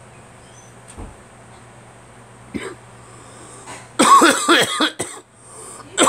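A man coughing: a single short cough a little before halfway, then a loud, harsh fit of several voiced, hacking coughs near the end. It is a chest cough he puts down to a sinus infection, bringing nothing up.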